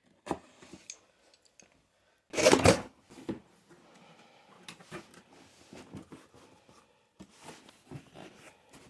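A cardboard box being opened and its packaging handled: a loud rip lasting about half a second, a little over two seconds in, then scattered rustling and light knocks.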